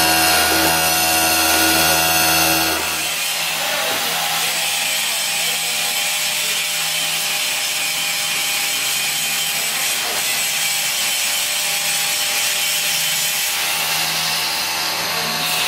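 A manual milling machine's 6 mm four-flute high-speed-steel end mill slots galvanised steel pipe at full depth, a steady hum with several steady tones. About three seconds in, this cuts off abruptly and gives way to a steady workshop noise of scraping and rasping from hand work at bench vices.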